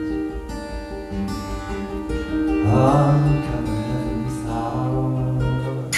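A song performed live: acoustic guitar with held notes under it and a voice singing, the voice sliding up and down about halfway through.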